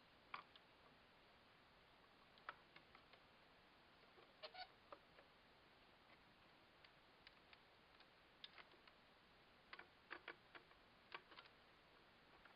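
Faint, irregular clicks and taps over near silence: plastic parts of a backyard pool water-park toy being handled and fitted together.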